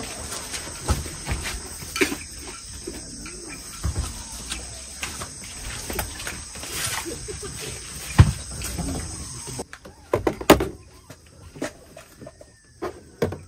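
Knocks, clunks and clicks of a minivan's rear seats and their plastic catches being folded and shifted by hand, the loudest knocks about two-thirds of the way through, with birds calling faintly.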